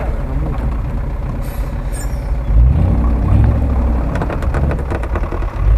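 UAZ-469 off-roader's engine running under load as the vehicle crawls down a snowy slope, revving up about two and a half seconds in.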